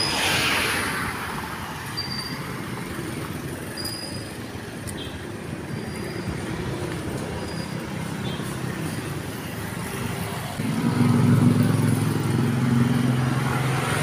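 Road traffic on a busy city road: cars and motorcycles going by. One vehicle whooshes past at the start, and a louder engine passes close from about ten and a half seconds in, its low drone lasting about three seconds.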